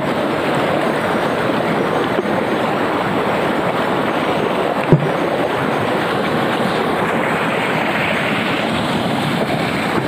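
Steady rushing noise of surf and wind on the microphone, with one sharp knock about five seconds in.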